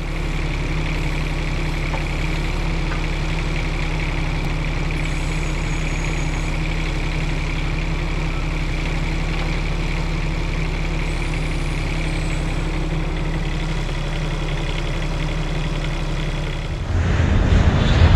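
Bobcat E10 mini excavator's diesel engine running steadily at a constant speed. Near the end the sound turns louder and rougher.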